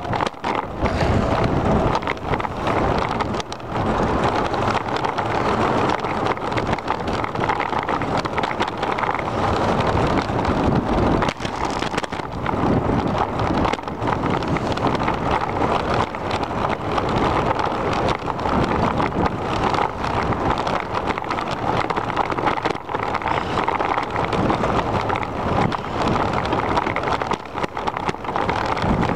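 Wind rushing over the microphone of a moving bicycle, steady throughout, with irregular bumps and rattles from the ride along the path.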